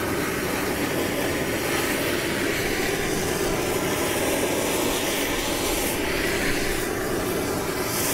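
Handheld blowtorch burning with a steady hiss as its flame melts the surface of a block of frozen Coca-Cola.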